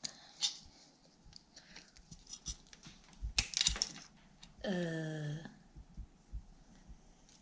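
Small metal clicks and ticks of a bicycle chain and multi-tool chain breaker being worked while a chain pin is pressed through, with a denser run of clicks about three and a half seconds in. About five seconds in, a short voiced exclamation falls in pitch.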